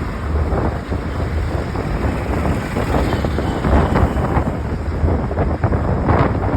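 Wind buffeting the microphone: a loud, rumbling noise that swells and drops in irregular gusts.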